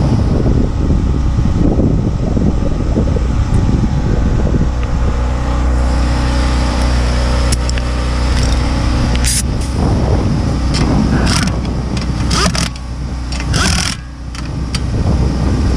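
A car's engine running, with heavy wind buffeting on the microphone at first and a run of sharp clicks and knocks in the second half.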